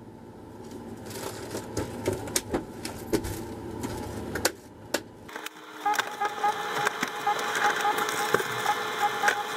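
Clicks and rustling of a camera being handled and carried at close range. About five seconds in the sound cuts off, and background music with a quick, steady beat takes over.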